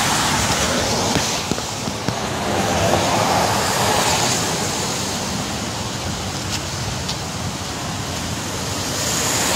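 Outdoor street ambience: a steady rushing noise of wind and road traffic, swelling a little about three to four seconds in.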